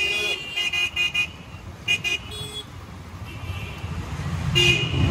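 Vehicle horns tooting in traffic: several short blasts, a couple of them from a different, higher-pitched horn, and another longer one near the end, over the steady low rumble of a motor scooter's engine and road noise.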